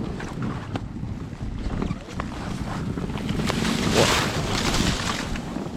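Electric snowbike with a snow track kit riding through deep powder: a steady low rumbling noise of the track churning snow, with wind buffeting the microphone and a louder hissing rush about four seconds in.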